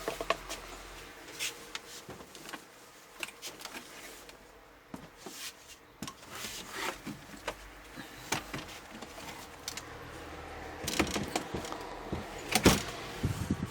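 Scattered knocks, clicks and rattles of a flat-panel TV being handled and turned over on the workbench, with a denser run of louder knocks near the end.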